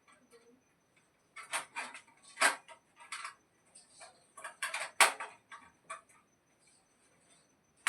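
Irregular light clicks and taps of small hard parts being handled, loudest about two and a half and five seconds in.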